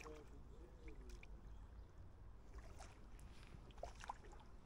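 Near silence: faint outdoor background hum with a few soft ticks.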